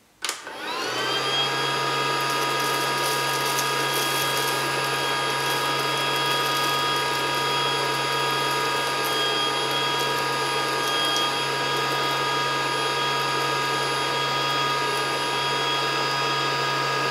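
Casdon toy Dyson DC14 vacuum cleaner switched on. Its two small battery-powered motors, the suction fan and the simulated-cyclone spinner, spin up within the first second and then run at a steady pitch while it sucks up bits of paper.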